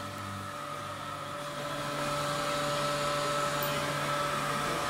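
Leaf blower running steadily as it lifts a small disc hovercraft, a whooshing rush of air with a steady whine, getting somewhat louder about two seconds in.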